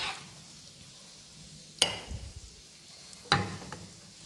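A metal spoon scraping thick pickle in a nonstick pan and clinking against the cookware as it is spooned into a glass jar: a short scrape at the start, then two sharp clinks about a second and a half apart, each followed by lighter rattles.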